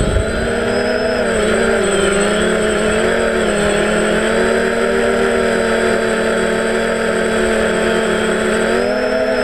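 Radio-controlled model aircraft's motor and propeller, heard from the onboard camera, running with a steady pitched drone after spinning up for takeoff; the pitch dips slightly about a second and a half in and rises a little near the end. A rushing noise of wind over the microphone sits under it.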